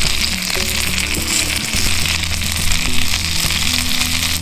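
Chicken frying in oil and butter in a cast iron skillet, a steady sizzle that goes on as raw potato cubes are dropped into the hot pan. Background music with a stepping bass line plays underneath.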